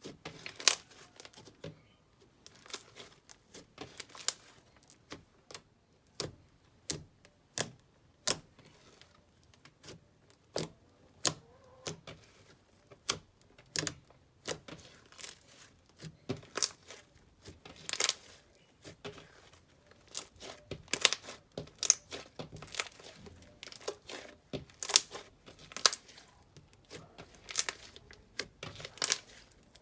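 Slime being worked by hand, making irregular sharp sticky pops and crackles, a few a second.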